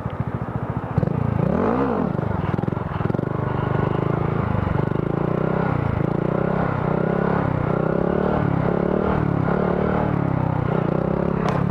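Honda Grom's 125cc single-cylinder engine being ridden, its revs rising and falling roughly once a second as the throttle is worked.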